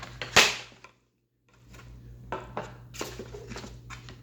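Plastic toy packaging being handled and pulled at. A loud crinkling scrape comes about half a second in, then the sound drops out completely for about half a second, then a run of sharp plastic clicks and crackles, over a steady low electrical hum.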